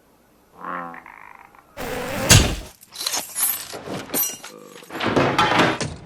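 A frog croaks about half a second in. A dense run of thuds, smacks and cracking impacts follows and keeps going to the end.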